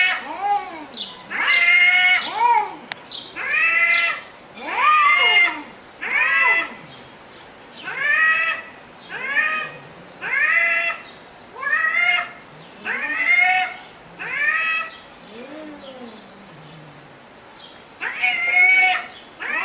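Domestic cat meowing over and over, about one drawn-out meow a second, each rising and then falling in pitch, with a short lull near the end before the calls pick up again.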